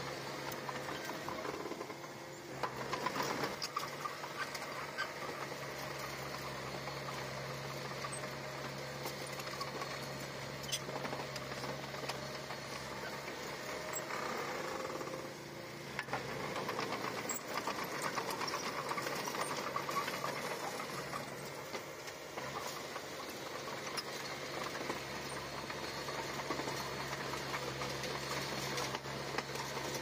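Komatsu crawler bulldozer's diesel engine running with a steady low drone and a busy mechanical rattle, getting a little louder about three seconds in and again about halfway through.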